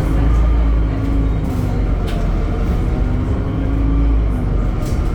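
Temsa Avenue LF 12 city bus's DAF diesel engine and ZF gearbox running, heard on board: a steady heavy low rumble with a droning tone held over it.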